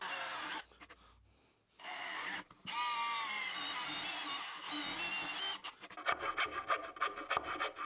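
A drill running with its bit in plywood, with a motor whine that shifts in pitch as the bit is worked sideways to join two holes into a slot. Near the end a file rasps back and forth in the slot in quick repeated strokes, cleaning it out.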